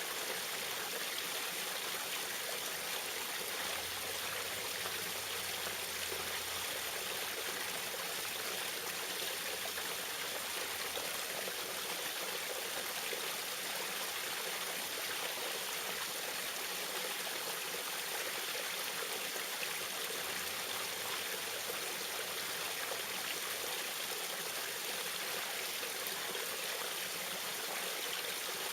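Small waterfall: water splashing and trickling in a steady, even rush.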